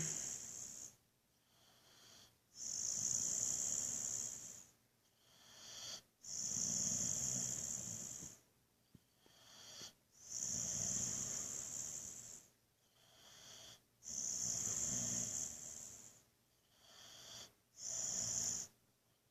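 Boxer dog snoring in deep sleep: regular long snoring breaths about every four seconds, each with a high whistling hiss, and a shorter, softer breath just before each one.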